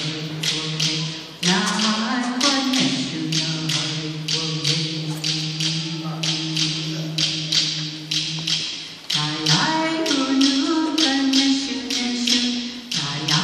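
A voice chanting a ceremonial blessing song in long held notes, sliding up in pitch about a second and a half in, over a steady percussion beat of about three strikes a second.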